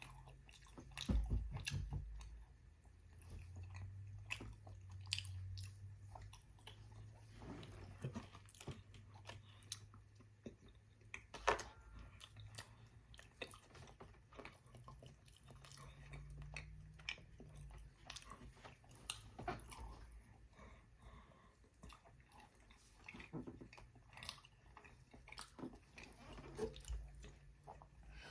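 Close-miked chewing of a soft microwaved brownie: faint, wet mouth sounds with scattered small clicks and smacks.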